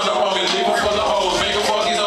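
Loud hip hop music with a man rapping into a microphone over the beat.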